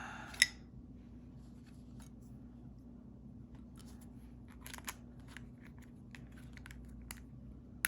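Small plastic key fob shell parts clicking and scraping as they are fitted together by hand: a sharp click about half a second in, scattered faint clicks through the middle, and another sharp click near the end.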